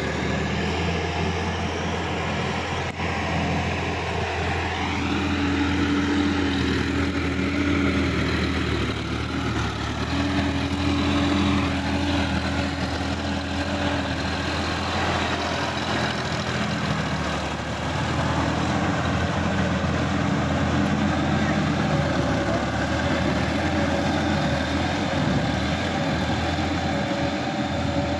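Sonalika DI 50 RX tractor's diesel engine running steadily as it pulls an implement through a flooded, muddy paddy field.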